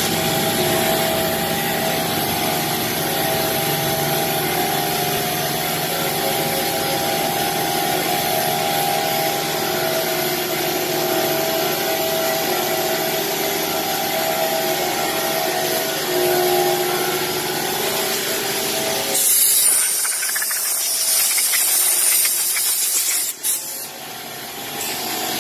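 Industrial machinery running steadily, a mechanical noise with a few steady tones in it. About 19 seconds in, the sound changes to a loud high hiss that lasts about four seconds and then drops away.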